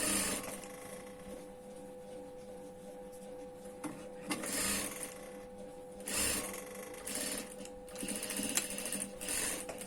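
Sewing machine stitching a collar seam in several short runs, the longest near the end, over a steady hum.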